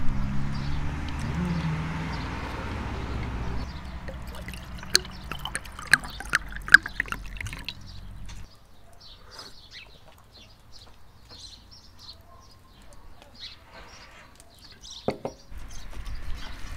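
Red wine poured from a glass carafe into a wine glass, glugging and splashing in quick irregular bursts for a few seconds, about halfway through.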